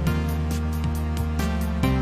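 Background music: pitched instrumental notes over a steady beat, with no workshop sounds standing out.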